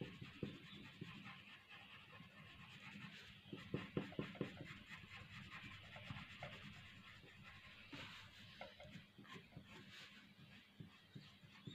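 Faint scratchy rubbing of a light-grade graphite pencil shading on drawing paper, with small irregular ticks.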